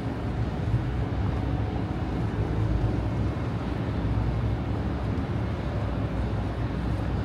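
Steady low engine rumble with a deep hum, holding even throughout over a general outdoor noise haze.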